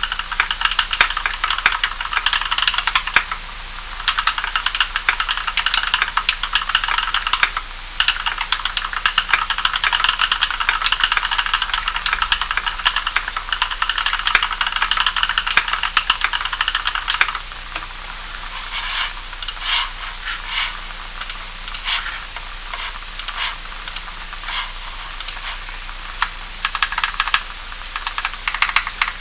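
Typing on a mechanical keyboard with Kailh Cream linear switches, lubed with Krytox 105 oil and fitted with films and 75 g springs. A fast, dense run of keystrokes thins to slower, separate key presses a little over halfway through.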